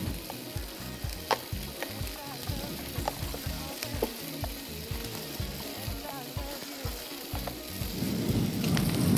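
Carrots frying in a stainless skillet, a steady sizzle with a few light clicks of a utensil against the pan. The sizzle swells louder about eight seconds in.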